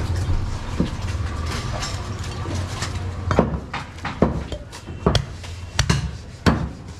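Heavy meat cleaver chopping through a goat carcass into a wooden log chopping block: about five hard blows starting about three seconds in, each under a second apart.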